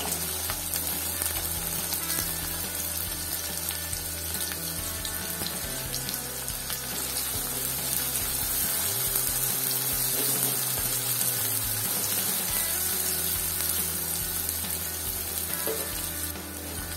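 Chopped onions frying in hot oil in a kadai, a steady sizzle, stirred with a steel spoon.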